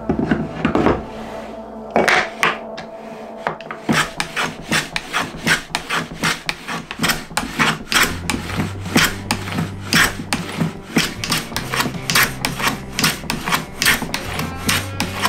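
Hand plane shooting the edge of an ebony board on a shooting board: quick, even rasping strokes of the blade through the hard wood, about two a second. Faint background music runs underneath.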